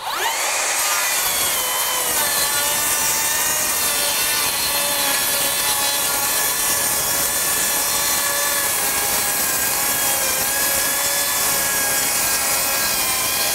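Makita 40V XGT brushless rear-handle 7-1/4-inch circular saw spinning up with a rising whine, then cutting a long run through a 2x4 screwed to OSB. The motor pitch drops slightly as the blade takes the wood, then holds steady under load over the rasp of the blade.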